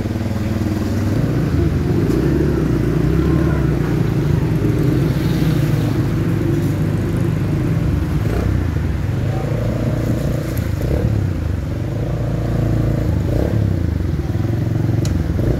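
Motorcycle engine running steadily, heard from on board the moving bike.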